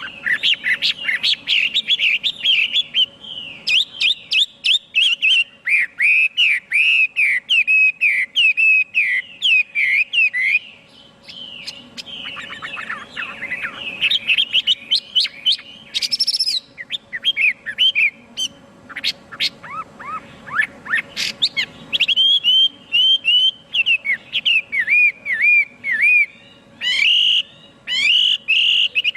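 Chinese hwamei singing: a long, fast run of varied, slurred whistled phrases, with short breaks about ten and eighteen seconds in.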